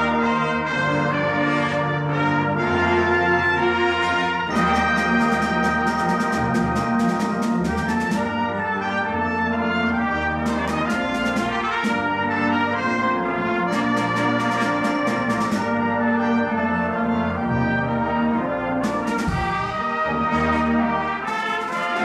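Full brass band of cornets, trombones, euphoniums and tubas playing a concert piece: sustained chords, with several stretches of quick, rhythmic repeated accents.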